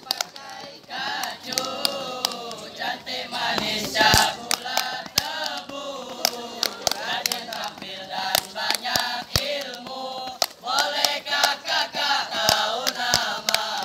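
A troop of boy scouts chanting and singing a scout yell together in unison. Sharp percussive hits, roughly two a second, punctuate the singing.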